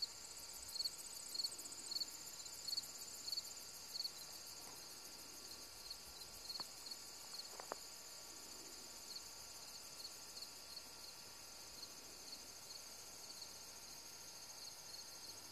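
An evening chorus of crickets and other insects in a rural meadow. One insect chirps about twice a second, loudest in the first few seconds and then fainter, over a steady high trill from others.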